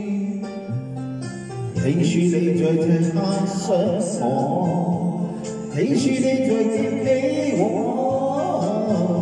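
Music from a song: a melody with vibrato over a sustained accompaniment.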